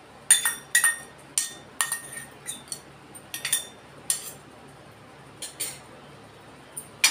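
A steel spoon tapping and scraping inside a small stainless-steel bowl, scraping paste out into a larger steel bowl: a quick run of ringing metallic clinks that thins out after about four seconds, with a last sharp clink near the end.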